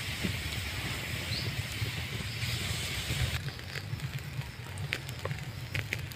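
Pork sizzling on a wire-mesh grill over charcoal, a steady hiss. About three and a half seconds in, the hiss gives way to scattered pops and crackles of fat over the coals. A low steady rumble runs underneath.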